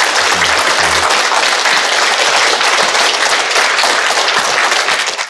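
Studio audience applauding, fading out near the end.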